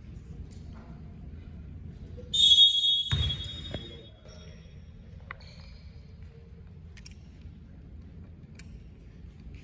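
A referee's whistle is blown once about two seconds in, a high-pitched tone lasting about a second, followed by a low thump. Otherwise there is a steady low background rumble.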